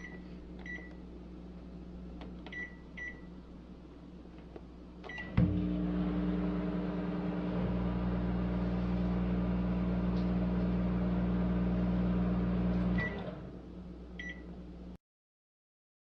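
Microwave oven: several keypad beeps, then the oven starts and runs with a steady hum for about seven and a half seconds. It stops with a beep about thirteen seconds in, and another beep follows.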